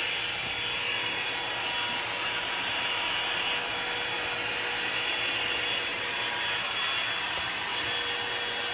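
Hair dryer blowing steadily: a constant rush of air with a faint hum.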